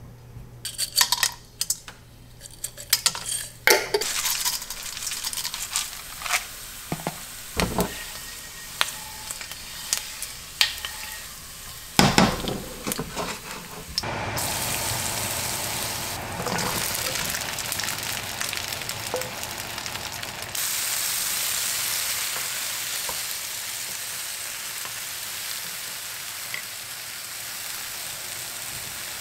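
Kitchenware knocking and clattering for the first half, then food frying in a pan: a steady sizzle that starts about halfway in and gets louder a few seconds later.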